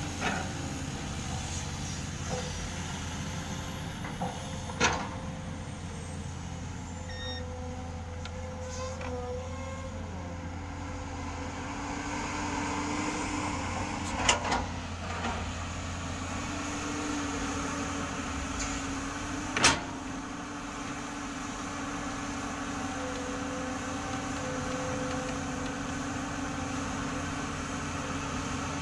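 Diesel earthmoving machinery, a crawler excavator working with a dump truck, running steadily with a low drone. Three sharp knocks, about five, fourteen and twenty seconds in, stand out as the loudest sounds.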